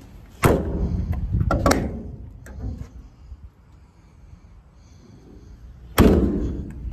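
Service truck utility-body compartment doors slamming shut twice, about half a second in and again near the end, each hit followed by a short rattling decay. Latch clicks come a little after the first slam.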